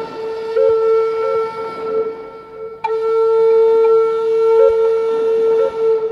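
Background music: a wind instrument, likely a flute, holding one long low note with brief upward flicks of pitch, broken by a fresh breath and attack about three seconds in.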